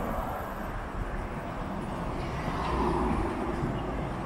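City street traffic: cars driving past on the road beside the pavement, one fading away at the start and another swelling past about midway through.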